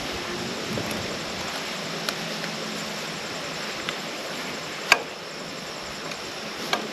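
Steady outdoor hiss with a low hum under it, broken by a few sharp clicks; the loudest click comes about five seconds in.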